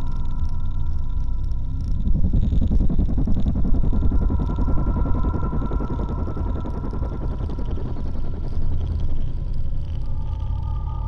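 Droning ambient soundscape: a deep steady rumble under two held high tones, with a gritty rasping texture swelling in about two seconds in. The held tones come back slightly lower near the end.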